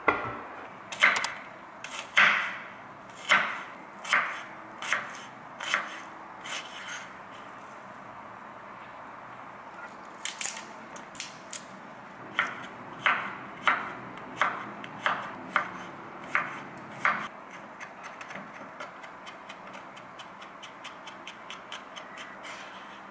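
Chef's knife cutting garlic on a wooden cutting board: single sharp knocks about a second apart, then, from about two-thirds of the way in, quicker and lighter taps as the garlic is minced.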